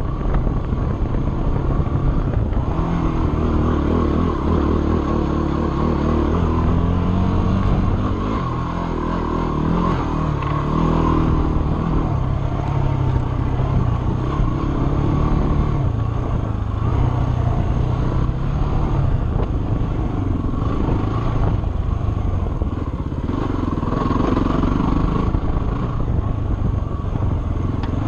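Dirt bike engine running hard on a trail ride, its pitch rising and falling with the throttle and gear changes. It eases off briefly about eight seconds in and again around 23 seconds.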